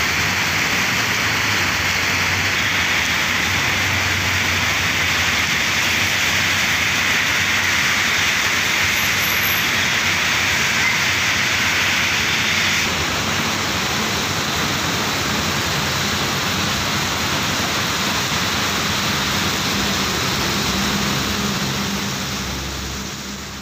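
Steady rain falling, a dense hiss. About thirteen seconds in it gives way to rain over street traffic, with motorbike and tuk-tuk engines running on a wet road. The sound fades out near the end.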